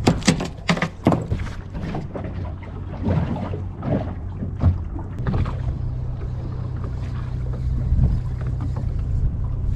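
Boat engine running with a steady low hum under wind on the microphone, with a cluster of sharp knocks and clatter in the first second or so.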